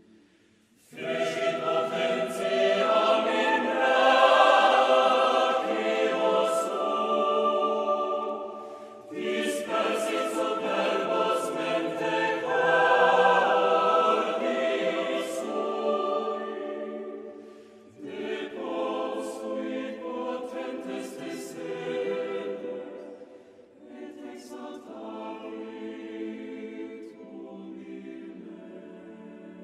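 A choir singing in long, reverberant phrases that begin about a second in and break briefly near 9, 18 and 24 seconds.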